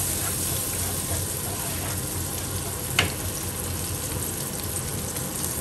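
Sea bass fillets sizzling steadily in hot oil in a frying pan, with a wooden spatula stirring in a second pan at first. One sharp tap about three seconds in.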